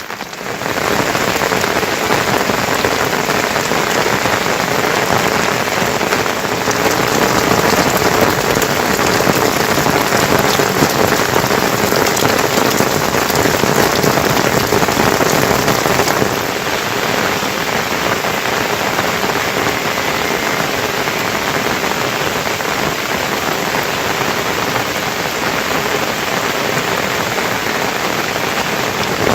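Heavy monsoon rain falling steadily, a dense even hiss that steps up in loudness about a second in.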